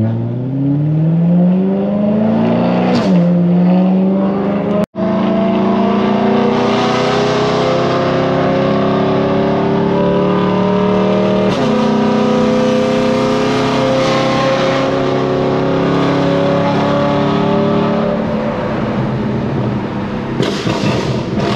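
Straight-piped BMW E92 M3's V8, with no mufflers or resonators, pulling through the gears, heard from inside the cabin and very loud. The pitch climbs, drops at an upshift about three seconds in, and climbs again for several seconds. It drops at a second upshift around the middle, then holds and eases off near the end. The sound cuts out for an instant about five seconds in.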